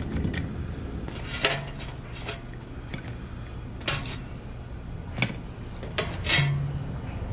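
Metal kitchen tongs clinking against the air fryer basket and a ceramic plate as pretzel sticks are lifted out and set down: about six separate clinks, spaced irregularly a second or so apart.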